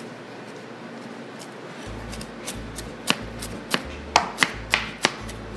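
Knife chopping food on a cutting board. The strokes start faintly about two seconds in and then fall as sharp, regular knocks, roughly two a second.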